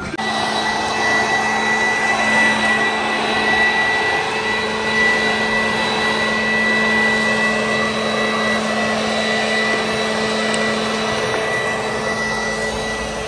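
Leaf blower running steadily, a loud rush of air with a high whine.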